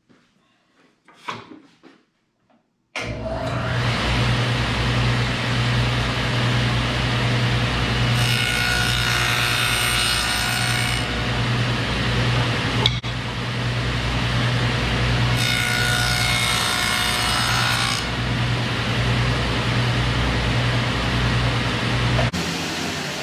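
Jet JWTS-10 table saw with a stacked dado blade switched on about three seconds in and running steadily with a constant low hum. Twice the dado cuts through a wooden board, each pass adding a brighter, harsher cutting noise for about three seconds. Near the end the saw is switched off and starts to wind down.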